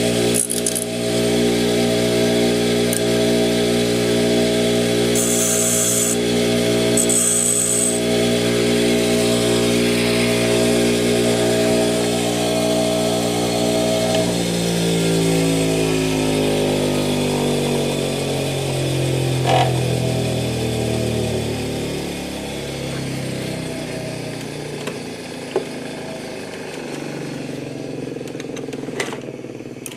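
A motor running with a steady hum, then switched off about halfway through: its pitch slides down over several seconds as it winds down and fades, with a few clicks near the end.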